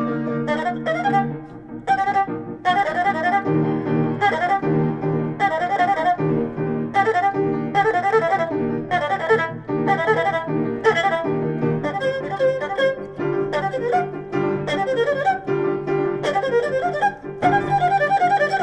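Erhu and piano duet: the erhu bows a wavering melody with vibrato while the piano strikes repeated chords over held bass notes.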